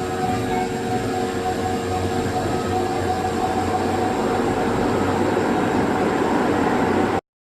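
Electric ceiling fan running: a steady mechanical whir and motor hum with several steady tones, cutting off suddenly near the end.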